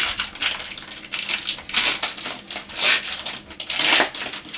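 Trading card booster pack wrapper crinkling as a pack is handled and opened, in several rustling bursts.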